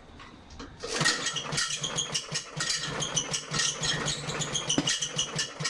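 Briggs & Stratton 500E series 140cc lawnmower engine catching about a second after a pull-start and running roughly with a rattle, then dying near the end. It starts but will not keep running, which the repairer takes as a carburetor fault; he puts the rattle down to a slightly loose blade.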